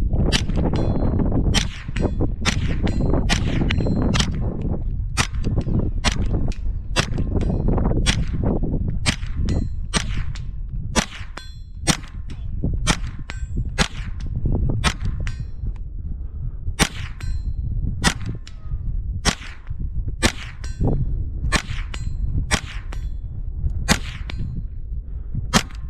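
HK MP5 .22LR rifle firing shot after shot at a steady pace, about one to two a second, each crack followed by a short metallic ring of the bullet hitting steel at about 100 yards. A steady low rumble runs underneath.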